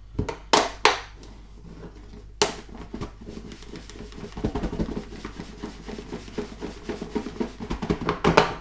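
A snap-on lid clicking onto a plastic food tub, a few sharp clicks in the first second, then the tub shaken hard for about six seconds, pieces of fish knocking and rattling inside as they are coated in seasoned flour.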